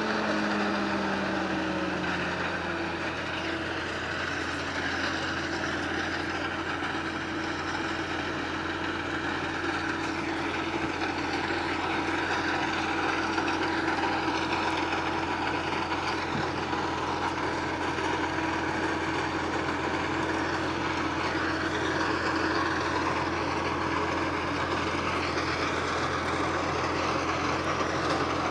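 Tractor engines and a forage harvester running steadily while chopping corn for silage. An engine tone falls in pitch over the first few seconds.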